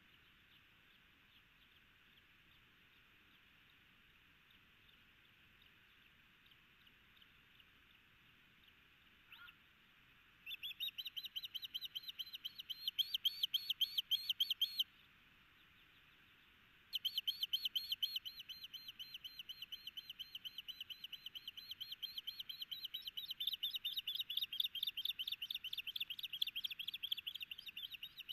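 Osprey giving long runs of rapid, high chirping calls, about five a second, starting about a third of the way in, with a short break midway. These are the female's calls as her mate brings a fish to the nest.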